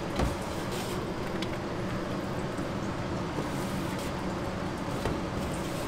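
Steady machine hum of a commercial kitchen, with a short thump just after the start and a faint knock about five seconds in.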